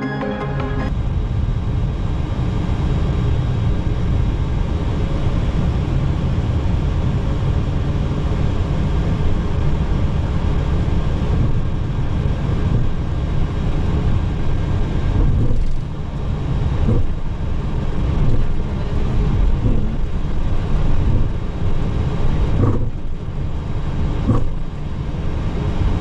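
Steady low rumble of noise in a Boeing 737-800 cockpit, with a few short knocks in the second half.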